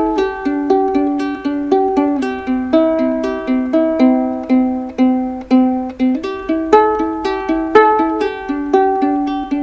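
Background music: a light plucked-string tune, a few notes a second.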